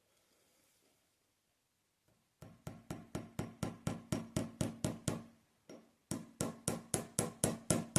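Small hammer driving a small nail into a wooden snooker cushion rail: quick, even taps about four a second, starting a couple of seconds in, with a short break near the middle before they carry on.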